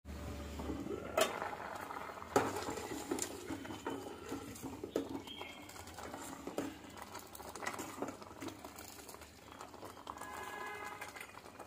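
A steel ladle stirring thick jaggery vermicelli payasam in a steel pot, knocking and clinking against the pot's sides at irregular moments, over a soft bubbling of the simmering payasam.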